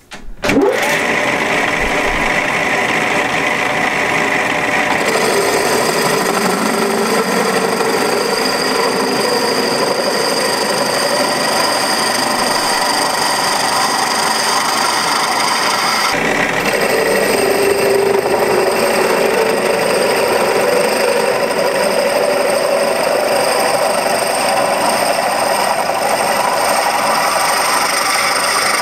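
Metal lathe running with a twist drill in the tailstock boring into a spinning roller, enlarging its 12 mm centre hole. A steady machine noise with the drill cutting, changing in tone about five seconds in and again about sixteen seconds in.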